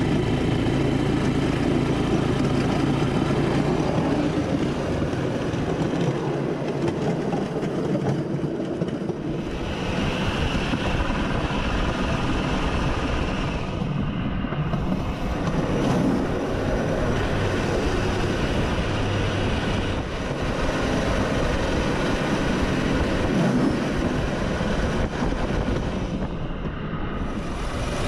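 Small motorcycle engine driving a motorodillo, a home-built wooden rail trolley, running steadily as the trolley rolls along the track.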